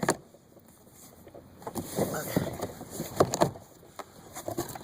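Cardboard shipping box being opened and its contents handled: a sharp click at the start, then rustling and scraping with a few sharp knocks about three seconds in.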